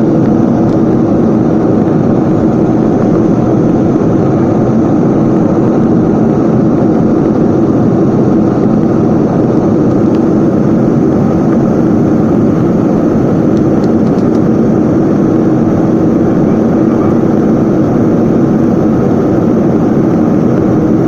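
Airplane engines running steadily at high power during takeoff, a loud, even noise with a constant low hum that does not change.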